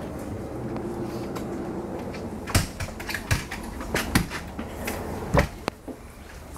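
Steady low hum inside a car-and-passenger ferry under way, with a scattering of sharp clicks and knocks from about halfway through.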